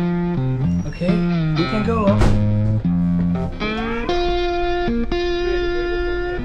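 Background music led by a plucked guitar.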